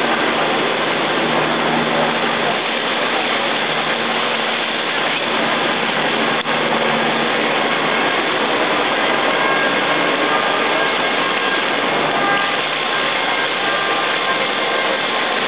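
Flood-swollen Salzach river rushing past at close range: a steady, loud noise of churning floodwater.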